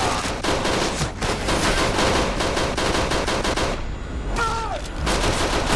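Sustained rapid automatic rifle fire, many shots a second, dipping briefly about four seconds in, where a man's short yell cuts through before the shooting picks up again.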